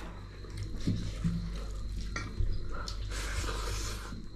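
Food being handled and mixed on a plate at a meal of rice and dal: wet stirring and squishing, with a few light clicks and a short hissy stretch near the end, over a steady low hum.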